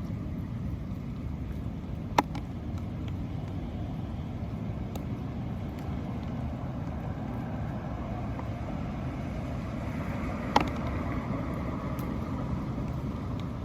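Steady rumble of road traffic, with two sharp knocks, one about two seconds in and another about ten seconds in.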